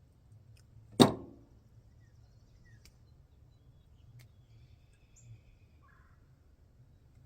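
A single sharp metallic clack about a second in, with a short ring, from crimping pliers closing on a wire connector; a few faint small ticks follow.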